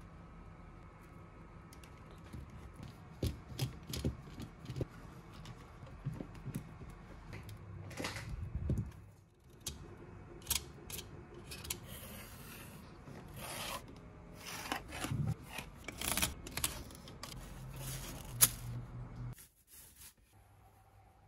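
Bar clamps being fitted and tightened around a plastic veneer-press mould: clamp jaws sliding on their metal bars and screw handles turning, with scattered clicks and knocks and stretches of rubbing. The handling stops suddenly near the end.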